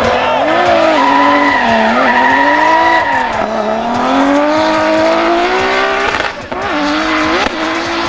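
Drift car's engine held high in the revs, its pitch swinging up and down as the throttle is worked, over the squeal of the rear tyres sliding sideways. About six seconds in the revs drop briefly, then blip back up twice.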